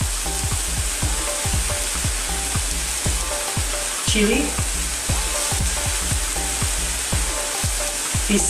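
Crabs and vegetables sizzling in hot oil in a stainless steel pot on a gas burner: a steady hiss with many small crackling pops throughout.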